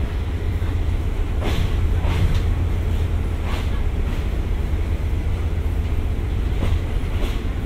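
A State Railway of Thailand passenger train moving slowly out of the station, heard from inside: a steady low rumble, broken by a few sharp clicks of the wheels over rail joints and points.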